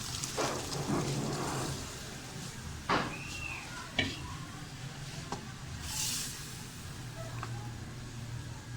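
Boiled chickpeas being tipped into frying masala in a pot and stirred in: uneven clatter and scraping with two sharp knocks about three and four seconds in, over a low steady hum.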